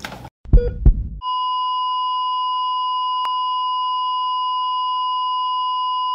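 Heart-monitor sound effect: two quick pulses, then a continuous flatline tone held steady, the signal that the heart has stopped.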